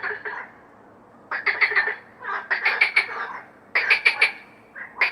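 A frog calling: a series of croaks, each a quick rattling run of several pulses, repeating about once a second with short pauses between.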